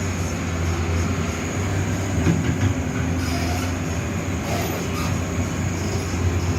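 Backhoe's diesel engine running steadily, with a deep, constant hum.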